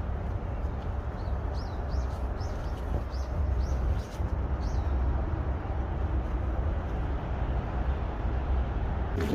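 Steady low rumbling outdoor noise, with a small bird chirping about seven short quick notes in the first half.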